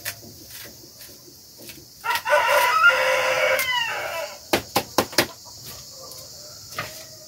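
A rooster crows once, a call of about two seconds that starts about two seconds in and falls in pitch at its end. Just after it comes a quick run of five or so sharp knocks.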